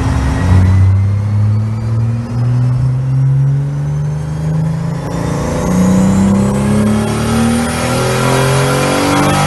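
Turbocharged Toyota Supra 3.0-litre straight-six (2JZ-GE with a BorgWarner SXE61 turbo kit) pulling hard under load on a Dynojet rolling road, its engine note climbing steadily in pitch through the run.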